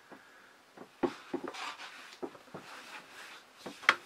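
Light knocks and rustling as a person shifts on a metal-framed chair and moves about, with one sharper click just before the end.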